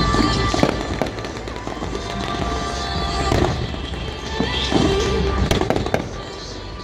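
Fireworks going off in a quick, irregular series of bangs and crackles, with music playing underneath.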